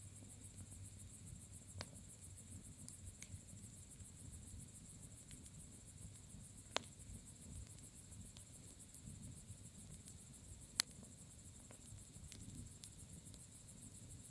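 Bonfire burning with a low, steady rumble and a few sharp crackling pops, the loudest about eleven seconds in, over the continuous high-pitched pulsing chirp of insects such as crickets.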